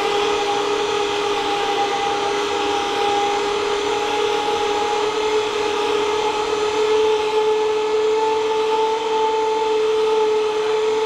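Electric trailer winch running steadily under load as it pulls a 1966 Corvette Stingray toward the car hauler. Its steady whine climbs slightly in pitch over the seconds.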